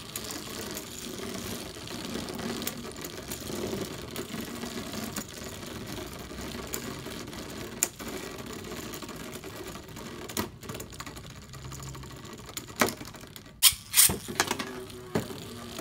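Ripcord-launched spinning-top battle figures whirring and rattling against each other on a hard plastic arena floor, a fast steady mechanical clatter. Near the end a few sharp plastic clacks as a figure is picked up off the arena.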